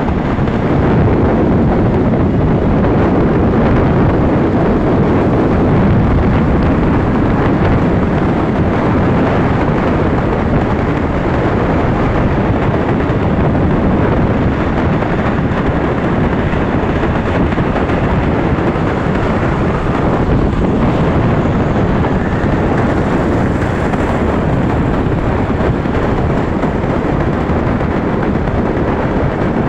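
Steady wind rumble buffeting the microphone of a phone on a moving motorcycle at highway speed, mixed with the bike's running and road noise.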